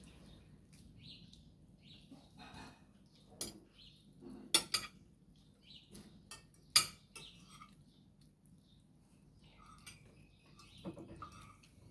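Cutlery and dishes clinking during a meal: scattered sharp clinks, the loudest about four and a half and seven seconds in, with faint chirping in the background.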